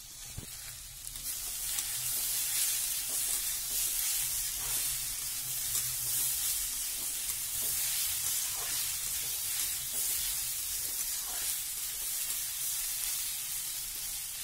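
Pumpkin-and-potato bhujiya sizzling in oil in a kadhai as a metal spatula stirs it through the just-added coriander and chili powder, with light scrapes of the spatula on the pan. The sizzle swells about a second and a half in and then holds steady.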